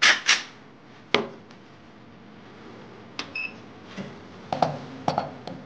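Handling clicks and clacks from an unloaded Glock 43X pistol and a Lyman digital trigger pull gauge between pulls, with a short electronic beep from the gauge about three seconds in.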